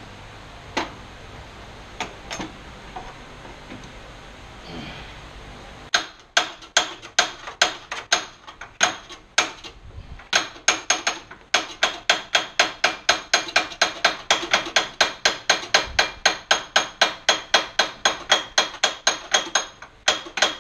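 A hammer striking metal on a band saw being taken apart, a few scattered knocks and then, from about six seconds in, a fast steady run of blows at about three a second with a ringing tone.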